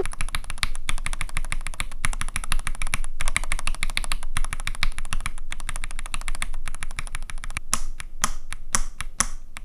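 Typing test on a mechanical keyboard fitted with Gateron X R2 linear switches: a fast, dense run of keystrokes, turning into separate strokes about three a second near the end.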